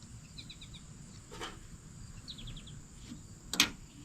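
Light clicks and one sharp knock from handling a broadhead sharpening guide while its clamp is being loosened. The knock comes about three and a half seconds in. Behind it are two short runs of quick, high chirps from wildlife.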